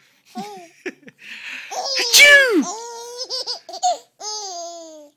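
Young infant laughing in a string of short, high-pitched bursts, with the loudest squeal about two seconds in, rising and then falling away.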